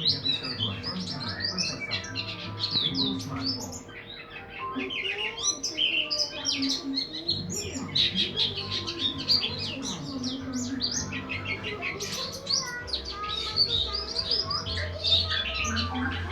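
Birds chirping rapidly and almost without pause, many short high chirps crowding over one another. A low steady hum sits underneath and gets louder for the last few seconds.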